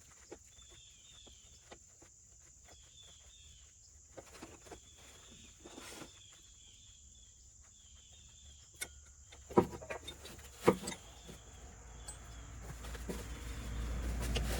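Insects chirping in short repeated trills over a steady faint high whine, with scattered light clicks and a few louder metallic knocks about ten seconds in, as hand tools work the power steering pump's mounting bolts. A low rumble builds near the end.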